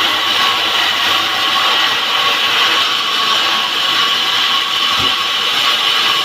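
Power saw running steadily while cutting through wood.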